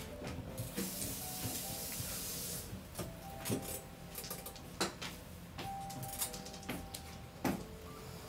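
Mahjong tiles clacking against the table as players discard and place them: a handful of sharp, separate clicks over faint background music.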